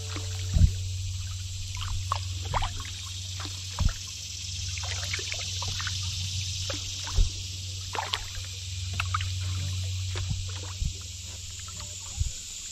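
Canoe paddle strokes: water splashing and dripping off the paddle blade, with a sharp knock of the paddle against the canoe every three to four seconds.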